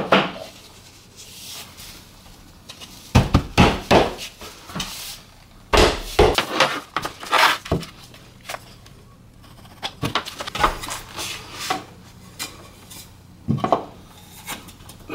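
Laminate flooring planks being handled and fitted: scattered wooden knocks and clatters, coming in clusters a few seconds apart.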